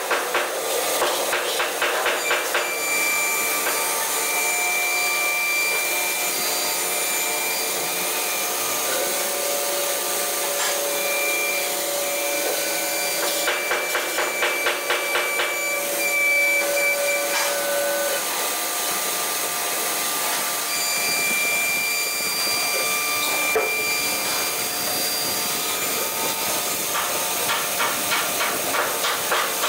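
3-axis CNC router with an air-cooled spindle at work carving a wood board: the spindle runs steadily while the gantry's drive motors whine in several tones that start, stop and shift pitch as it moves. Rapid even ticking comes and goes near the start, in the middle and near the end.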